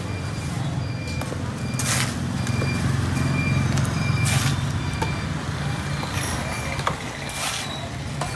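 Low engine rumble of passing motor traffic, swelling through the middle and easing off about six seconds in, with a few sharp single knocks and two brief hisses.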